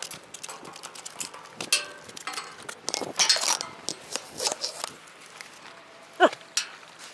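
Irregular metallic clicks and knocks from a spinning rod and reel being handled against a metal railing while a hooked fish is being played. A brief falling cry comes about six seconds in.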